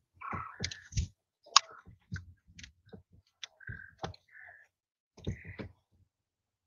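Young quail giving short chirping calls among many sharp clicks and taps.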